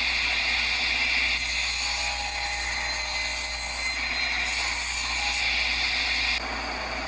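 Power woodworking saw running steadily while a board is cut to length. The higher part of the sound drops away suddenly about six seconds in.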